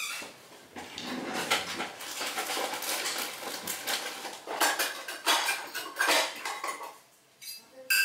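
Kitchen utensils and dishes clattering and clinking on the counter as they are picked up and handled, with irregular scraping and sharp clicks. There is a short lull near the end, then one sharp clink.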